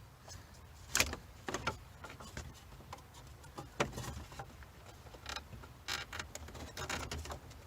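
Irregular clicks, knocks and rattles of plastic dashboard trim and controls being handled and pried at while being worked loose. The sharpest knock comes about a second in.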